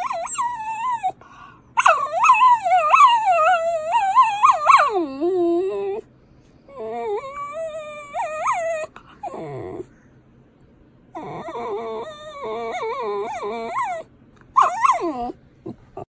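Puppy howling and whining in high, wavering notes that slide up and down, a 'wee-woo' imitation of a police siren. It comes in several bouts with short pauses between them.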